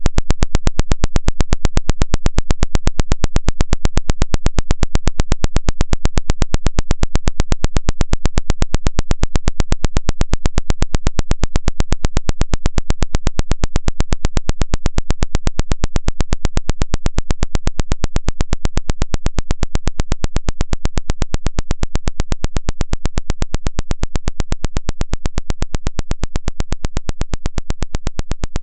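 Synthetic water-ejection vibration sound: a loud, buzzing train of rapid, evenly spaced pulses. It is played through a phone to shake water out of the charging port and speaker. It gets slightly quieter near the end.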